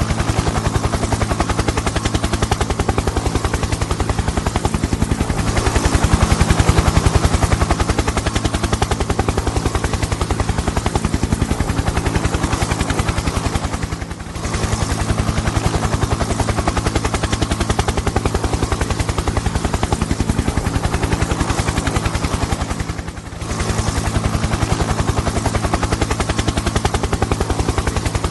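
Helicopter engine and rotor sound effect: a steady, rapid chopping with a low engine drone, briefly dipping twice, about halfway and about two-thirds of the way through.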